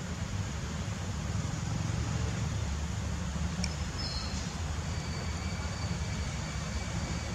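Steady low outdoor rumble with a hiss above it. A brief high whistle sounds about halfway through, and a thin steady high tone comes in for the last couple of seconds.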